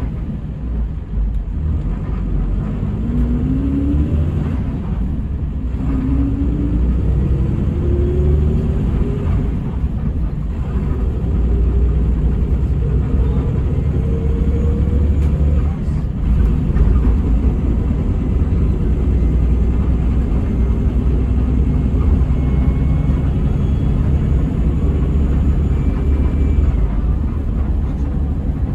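Hino RG230K coach's diesel engine accelerating over a steady low rumble. Its pitch rises and drops back several times as it works up through the gears.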